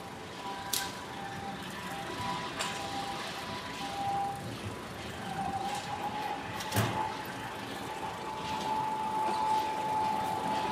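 Outdoor plaza ambience by a running generator and a crew taking down tents: a high whining tone that wavers and steps up slightly in pitch about halfway through, with scattered clanks and knocks, the loudest about seven seconds in.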